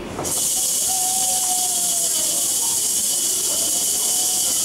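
A steady, even hissing sound effect that starts suddenly just after the start and holds level, accompanying the eagle puppet's flight down.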